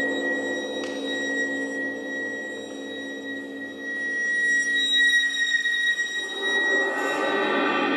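Contemporary chamber music for two percussionists and viola: high sustained ringing tones over a slow, even pulsing. About six seconds in, a denser, rougher layer enters and the music grows louder.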